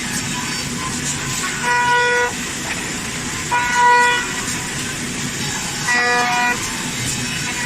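Five-axis CNC router running, with a steady machine noise and three short, pitched whines about two seconds apart as the spindle's cutter bites into the wooden chair backrest on each pass.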